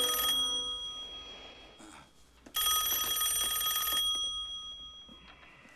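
Push-button desk telephone ringing: the tail of one ring fades out at the start, and a second ring comes about two and a half seconds in, lasting about a second and a half before dying away.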